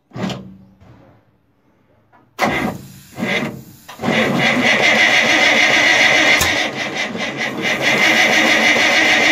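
Starter motor cranking an FNM truck's engine on weak batteries: a couple of short bursts, then steady cranking from about four seconds in, without the engine catching.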